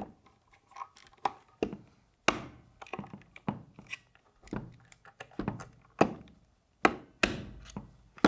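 A dozen or so irregular sharp knocks and clicks of hard parts and tools striking and shifting against each other as an SSR63 A3 airsoft rifle is taken apart.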